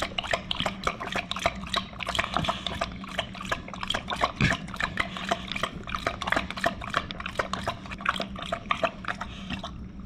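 English bulldog lapping water from a stainless steel bowl: a fast run of wet laps and splashes, several a second, with one louder knock about four and a half seconds in.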